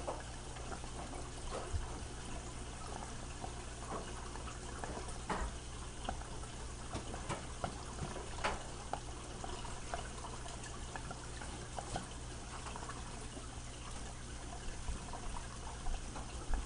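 Aquarium water trickling steadily over a low hum, with scattered light clicks and knocks.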